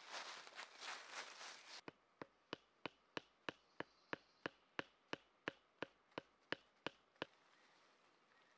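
Footsteps rustling through dry leaf litter. About two seconds in, a steady run of about seventeen sharp knocks follows, roughly three a second: a wooden stake being hammered into the ground.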